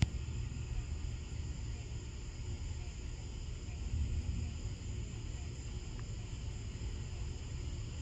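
Insects chirping steadily in a high, even drone over a low rumble that swells slightly about four seconds in, as lightning flashes overhead.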